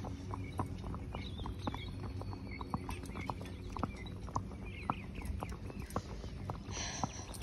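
Horses' hooves clip-clopping on an asphalt road, a steady rhythm of several sharp strikes a second.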